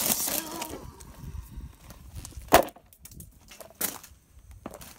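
Hammer blows on a fidget spinner lying on a plywood board: a clattering hit at the start, then separate sharp knocks, the loudest about halfway through and two more near the end.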